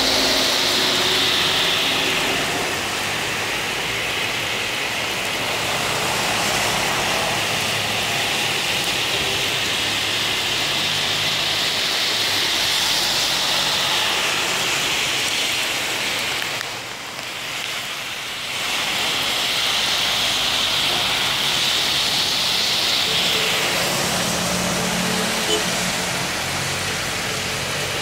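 Cars and minibuses passing on a rain-soaked road: tyres hissing through the wet asphalt, swelling and fading several times as each vehicle goes by, over heavy rain. An engine hum grows near the end as a minibus approaches.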